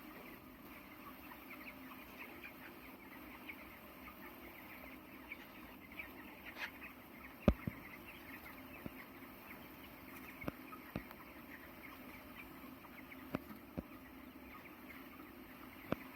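A flock of young broiler chickens, about three weeks old, peeping and chirping continuously, over a low steady hum. A few sharp knocks cut through, the loudest about halfway through.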